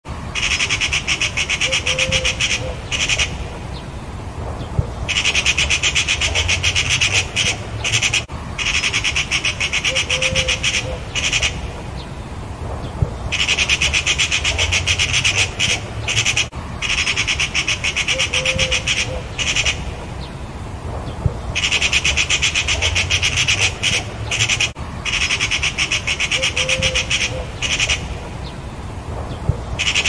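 Magpies giving their harsh, rapid chattering alarm rattle in runs of a few seconds with short breaks, the mobbing call of birds defending their nest against a cat. The same stretch of calling repeats about every eight seconds.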